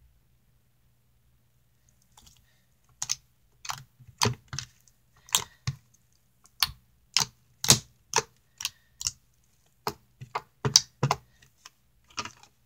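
Slime being squeezed and pressed by hand in a glass dish, giving loud, clicky pops, about two a second at an uneven pace, starting about three seconds in.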